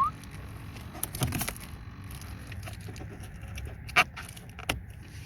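A few sharp clicks and knocks at irregular intervals, the loudest about four seconds in.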